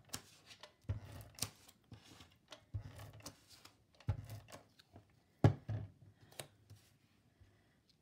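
Handheld tape runner laying adhesive onto cardstock in several short strokes, each a brief rasp with a soft knock against the table, with paper being handled. The strokes die away near the end.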